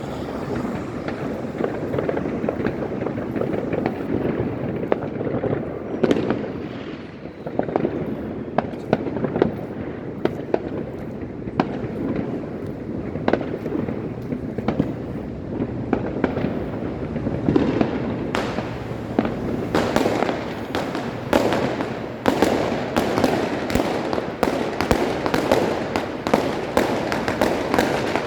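Many fireworks going off at once: a continuous rumble of bangs overlaid with sharp cracks. The cracks come thicker and faster in the second half.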